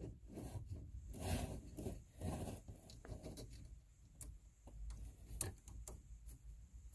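Faint, scattered clicks and light scraping of small parts being handled: a plastic fan bracket and its screw being fitted onto a 3D printer's extruder carriage.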